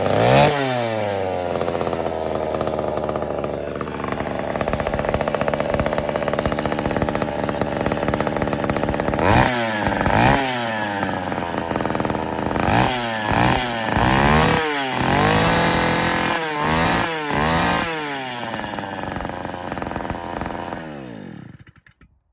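McCulloch MC49 two-stroke go-kart racing engine running and being blipped on the throttle: the pitch climbs and falls in repeated sharp revs, several in quick succession in the second half, with a steadier high-speed run between them. Near the end it winds down and cuts out.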